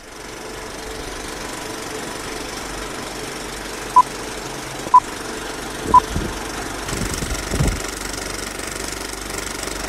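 Vintage film-projector sound effect: a steady rattling whir with three short beeps one second apart, like an old film-leader countdown, and a few low thumps after the beeps.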